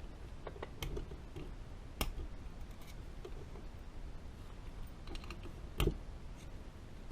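Scattered light clicks and clinks of small metal parts from a Harley-Davidson Sportster 4-speed transmission being handled during disassembly, with sharper knocks about two seconds in and again near six seconds.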